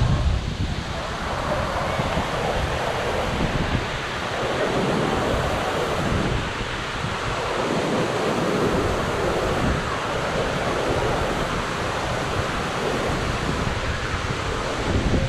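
Waterfall: a steady rush of falling water, with wind buffeting the microphone.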